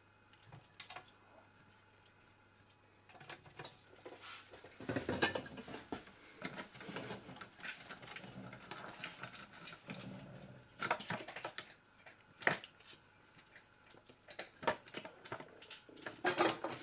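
A young red squirrel's claws scrabbling, tapping and scraping as it climbs over stacked tins and cardboard boxes, a run of irregular clicks and knocks that starts a few seconds in.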